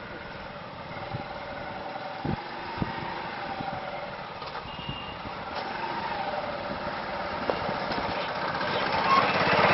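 Motorcycle engine idling and running slowly, getting louder near the end as the bike comes close. Two sharp knocks come a little over two seconds in.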